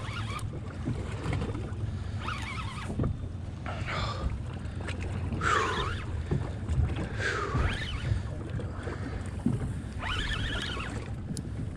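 Wind on the microphone and water lapping at a small boat's hull make a steady low rumble, with several short rushes of higher noise spread through.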